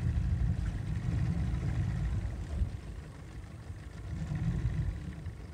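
Small outboard motor running at low speed, a steady low rumble that eases off for a second or so past the middle and then picks back up.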